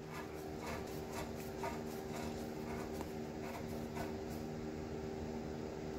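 Faint, irregular clicking and scraping of a 1/2-inch threaded steel pipe nipple being screwed by hand into a pipe union, over a steady low background hum.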